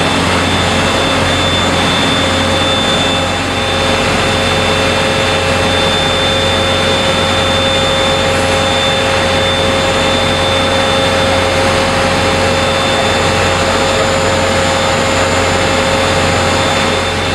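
Steady, loud machinery noise from a spring-making production line: a dense, even din with several constant whining tones over a low hum.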